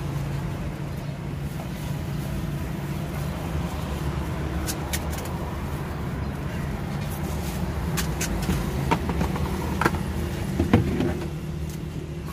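Steady rumble of street traffic with scattered clinks and clatter from steel pots and plates at a food stall, the loudest clink about two seconds before the end.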